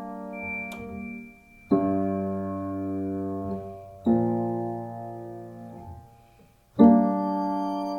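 Slow piano music: three full chords struck a little over two seconds apart, each left to ring and fade before the next.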